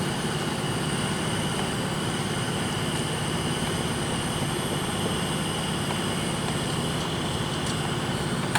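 Steady machine drone with a constant high whine, even and unchanging.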